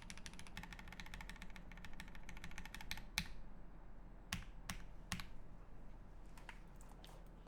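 Typing on a Keycult No.1/65 mechanical keyboard with lubed Pinoko V2 switches, GMK keycaps and an aluminium plate: a fast run of keystrokes for about three seconds, then it slows to a few single, separate key presses.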